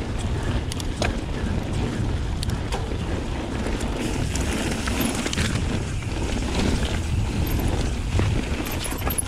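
Wind buffeting a GoPro's microphone as a mountain bike rolls at speed over gravel and packed dirt, a steady low rumble with tyre noise and scattered clicks and rattles from the bike.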